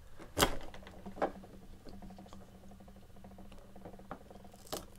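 Small flat screwdriver prying a plastic cover out of a hard disk's base: a few sharp clicks and scrapes, the loudest about half a second in, another about a second in and one near the end.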